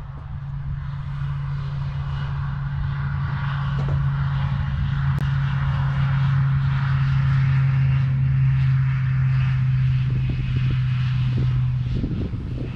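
Propeller engine of a skydiving jump plane running at full power on take-off, a steady low drone that grows louder over the first few seconds and then holds.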